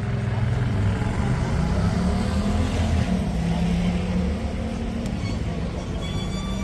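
A motor vehicle's engine running close by in traffic, its low hum shifting up and down in pitch.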